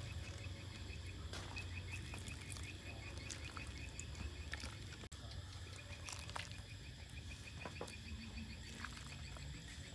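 Quiet outdoor ambience: a small animal chirping in a rapid, even, high-pitched series for the first few seconds, over a low steady rumble.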